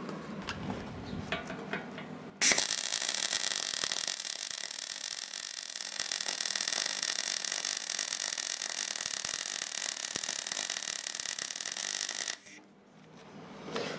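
Deca Decastar 150E MIG welder's arc burning under shielding gas: a steady crackling hiss that starts abruptly about two and a half seconds in and cuts off about ten seconds later. The bead is run at a higher power setting in one straight pass without weaving.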